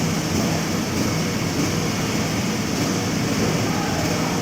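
Heavy diesel engine running steadily at the concrete pour, a constant low drone with no distinct knocks or changes.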